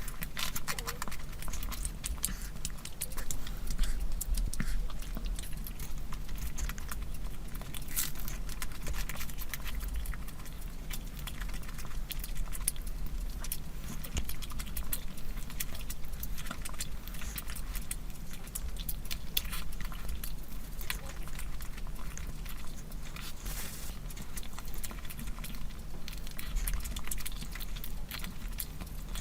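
Close-miked eating sounds: wet chewing and smacking of curry, with many small clicks throughout, over a steady low hum.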